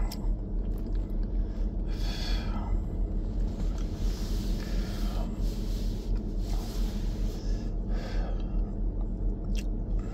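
Steady low rumble inside a car cabin, with a faint voice murmuring now and then.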